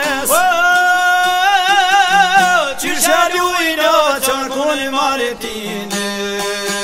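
Albanian folk song: a male voice holds one long wavering note, then sings an ornamented, melismatic phrase over plucked long-necked lute accompaniment. Near the end the voice stops and the plucked strings carry on alone over a steady drone.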